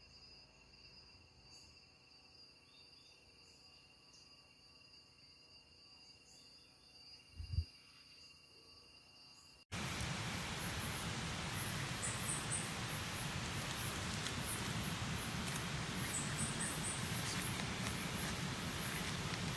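Faint, steady trilling of crickets, with one brief low thump. About halfway through, it cuts off abruptly into a much louder, even hiss.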